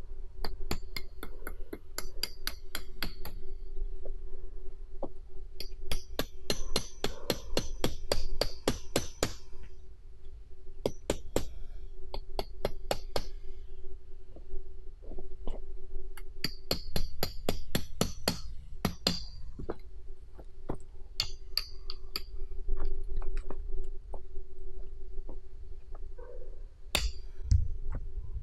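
Runs of sharp knocks, about four a second, in bursts of a few seconds with short pauses between them, over a steady faint hum.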